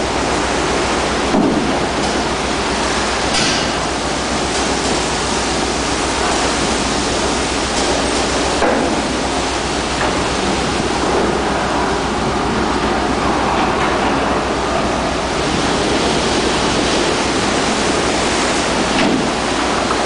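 Rough sea surging against and washing over the steel deck of a jack-up drilling rig: a loud, steady rush of churning water, with a few brief louder splashes.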